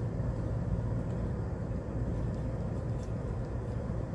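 Steady cabin noise of a Hyundai Porter II small diesel truck driving at an even speed: a low rumble of engine and road with a faint steady hum, no change in pitch.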